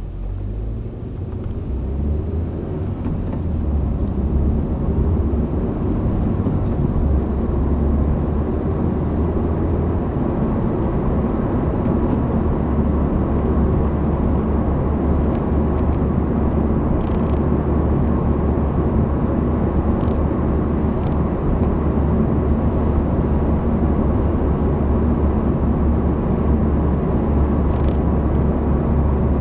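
Honda Civic sedan heard from inside the cabin while being driven: a low rumble of engine and tyres that builds over the first few seconds as the car picks up speed, then holds steady at cruising speed. A few faint clicks come in near the end.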